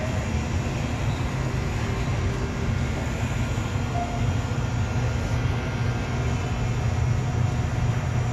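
Steady low background rumble of an indoor store.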